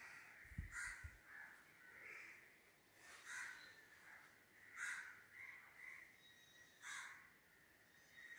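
Faint, repeated harsh bird calls, about eight short caws at irregular intervals, with a soft low knock about half a second in.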